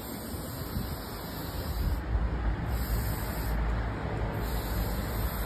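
Aerosol spray-paint can hissing in three bursts, a long one, a short one, then another long one, as black paint goes onto a wall. A steady low rumble runs underneath.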